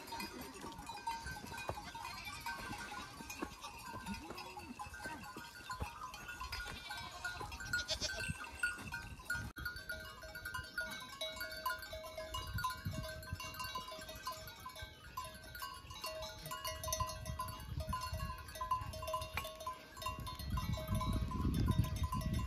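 Mixed flock of goats and sheep bleating as they graze and move uphill. A low rumble rises near the end.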